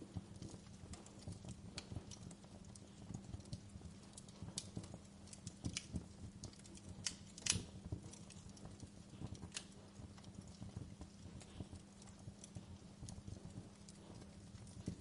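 Wood fire crackling in a fireplace: irregular small snaps and pops, with one louder pop about halfway through, over a low steady rumble.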